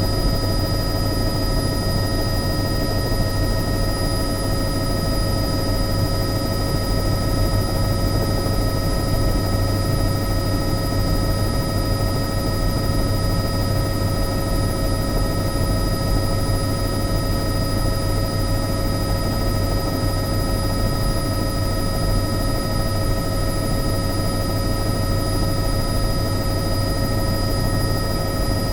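Bell 505 JetRanger X helicopter heard from inside the cabin, running steadily: a low rotor and engine drone with a steady high turbine whine over it. Pitch and level stay unchanged throughout.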